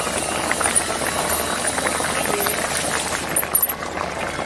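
Thick spiced tomato curry gravy with sweet potato pieces boiling hard in an open metal pan: steady bubbling with many small pops and sputters.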